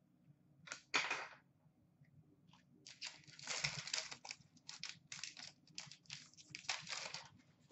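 A stack of trading cards handled and flipped through by hand: short, quick rustles and scrapes of card stock sliding against card stock, coming in a dense run from about three seconds in.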